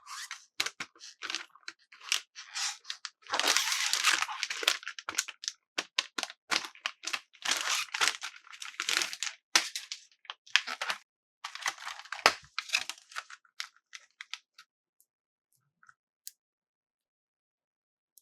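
Toy packaging being torn open and crinkled by hand: a quick run of rips, rustles and crackles that stops about 14 seconds in, followed by a few faint clicks.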